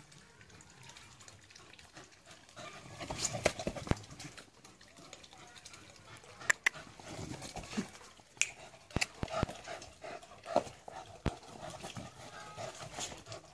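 A Kooikerhondje playing with a hard rubber ball: about ten sharp, separate knocks and clicks as its teeth and paws strike the ball, with the dog's own vocal sounds in between.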